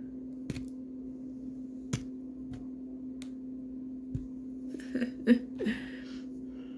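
Light clicks and taps from handling a small plastic dig-and-find toy and its grainy sand, with a second of scratchy rustling about five seconds in, over a steady low hum.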